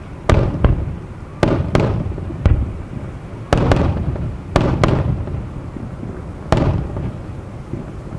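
Aerial firework shells bursting in a display: about ten sharp bangs over eight seconds, several coming in quick pairs, each trailing off in a low rumble.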